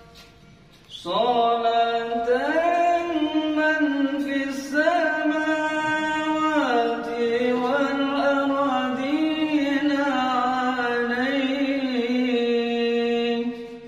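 A man chanting an Arabic sholawat, a blessing on the Prophet Muhammad, in one long phrase of held notes with slow ornamental glides. The phrase starts about a second in, after a breath, and ends just before the end.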